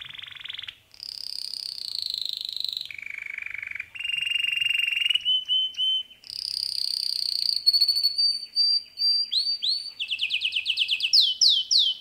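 Canary singing a long song made of rapid trills, each a second or two long and pitched higher or lower than the one before. Near the end it breaks into a fast run of rising, upswept notes.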